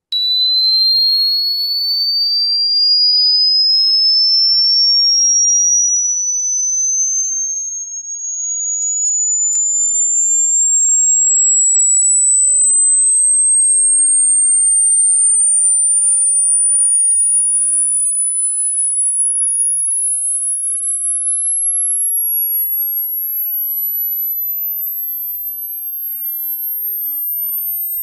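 Synthesized pure sine tone sweeping slowly and steadily upward in pitch, from a high whistle to a very high, thin whine, played as a cricket-repellent 'ultrasonic' sound. It starts abruptly after a moment of silence.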